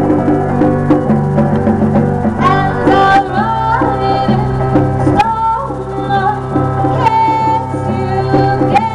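Live band playing a song, with electric guitar and a higher melody line that slides between notes over sustained low notes.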